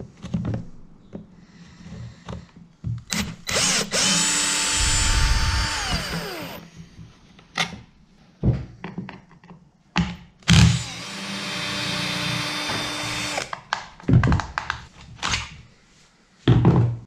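Cordless drill-driver running in two bursts of a few seconds each, backing out the screws that hold a brush cutter's engine cover; after the first burst the motor's whine falls in pitch as it winds down. Short clicks and knocks of the tool and parts being handled come in between.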